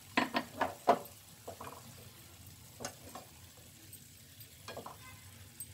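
Spatula stirring and scraping paneer and capsicum pieces in a frying pan over a faint sizzle, with several sharp scrapes and knocks in the first second and a few more spaced out after that.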